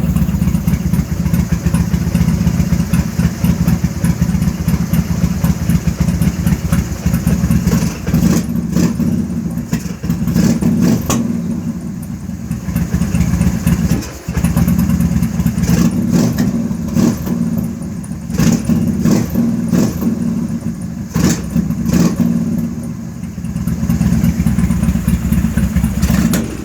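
Carbureted engine idling roughly, its speed wavering and dipping, with repeated sharp pops from the carburetor through the middle stretch. The sound falls away just at the end.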